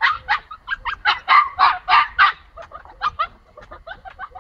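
Pomsky puppy barking in a rapid string of short, high-pitched yaps, wanting to be let out through the gate. The barks turn softer after about two and a half seconds.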